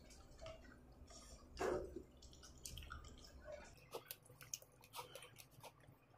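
Faint, wet mouth sounds of eating by hand: soft smacks and one louder slurp-like sound about two seconds in, then a run of small sharp clicks and smacks in the second half.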